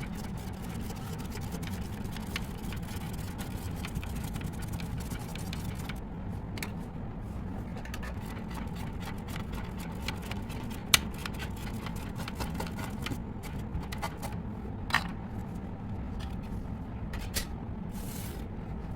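Spirograph drawing by hand: a pen scratching steadily on paper as the plastic geometry-ruler gear is turned, with scattered sharp clicks, the loudest about eleven seconds in and another near fifteen seconds.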